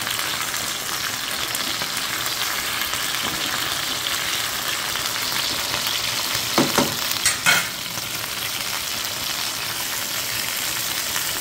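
Chicken breasts sizzling and spitting in hot oil in a grill pan. The meat's water has not yet cooked off, so the oil spatters. A quick cluster of four sharper, louder sounds comes a little past halfway.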